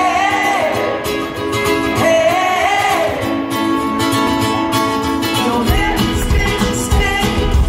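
Live pop-rock band: a male lead singer over a strummed ukulele, with the full band joining about six seconds in and adding a heavy low end.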